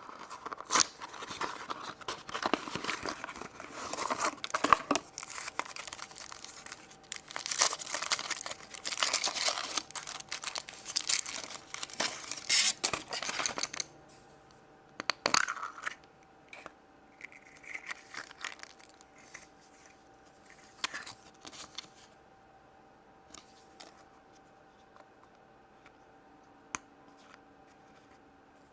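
Wrapper of a surprise egg being torn open and crinkled off for about fourteen seconds, followed by scattered light clicks and taps as the egg is handled.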